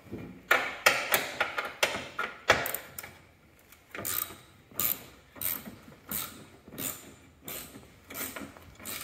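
Hand ratchet wrench clicking as it backs out a seat-mounting bolt. A quick run of clicks comes first, then a steady click about twice a second.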